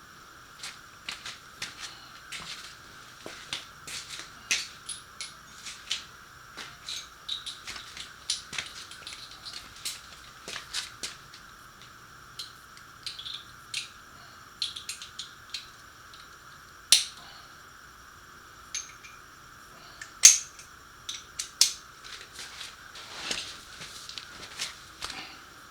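Irregular clicks and taps of hand tools working on a motorcycle's exhaust bolts, with two louder metallic knocks in the second half.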